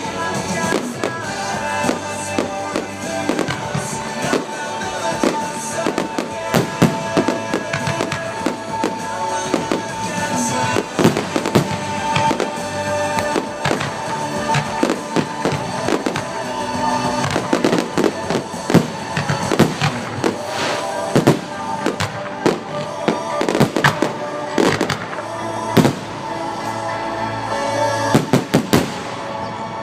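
A fireworks display bursting and crackling over music, with many sharp bangs through the stretch and a dense rapid cluster of them near the end.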